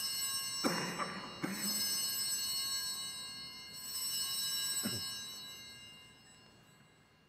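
Altar bells rung at the elevation of the chalice: a bright, many-toned ringing, struck again twice, then fading away. A soft thud about five seconds in.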